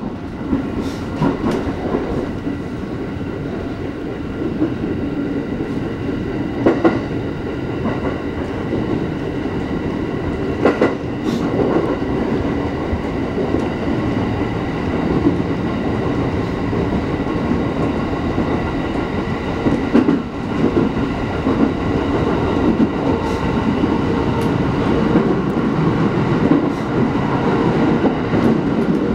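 Inside a moving electric commuter train: a steady rumble of wheels on rail with a faint steady hum. A few sharp clacks come over rail joints, about 7, 11 and 20 seconds in.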